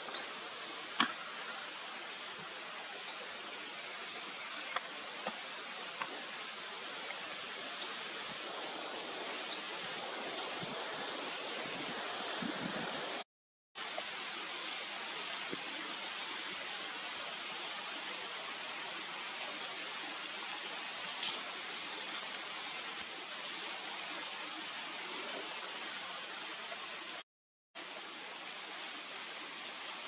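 Steady rush of running water with a few short, high, rising chirps and faint clicks; the sound cuts out completely twice for a moment.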